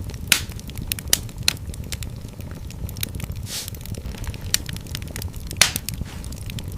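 Wood fire burning in a fireplace: a steady low rumble of flames with irregular sharp crackles and pops, the loudest pops about a third of a second in and near the end, and a brief hiss about halfway through.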